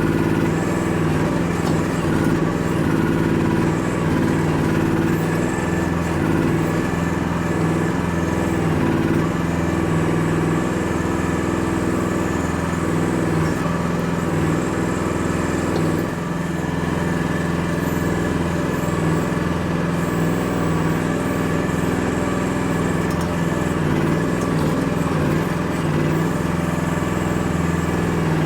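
Chinese mini excavator's engine running steadily at constant speed while the machine digs.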